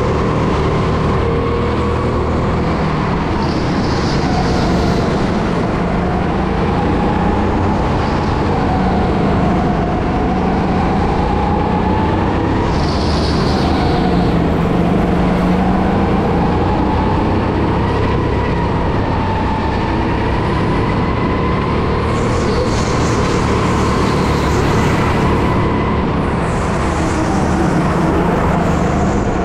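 Go-kart motor heard on board during a race lap, its pitch rising and falling over a few seconds at a time as the kart speeds up and slows through corners, over a steady rush of wind and running noise.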